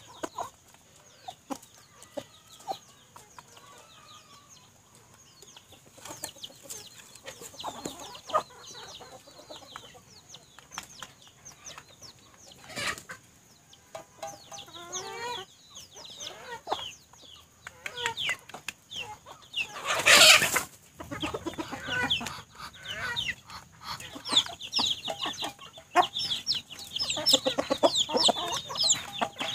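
Domestic chickens clucking softly while they peck at a feed bowl, with sharp clicks of the pecking. In the last third, chicks peep in high, thin, quick chirps. One brief loud noise about two-thirds through stands out above the rest.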